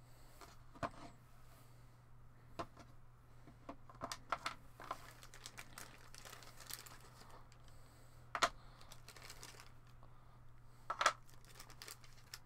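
Plastic packaging crinkling and rustling as small 3D-printed resin model parts are unwrapped, with scattered light clicks and taps as the pieces are set down on the table. A faint steady low hum runs underneath.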